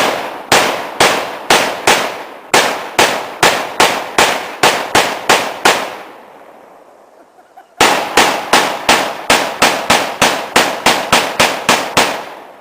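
Rapid gunfire, shot after shot at about two to three a second, each shot with a short echo. The firing stops for about two seconds partway through, then a second, quicker string of shots follows.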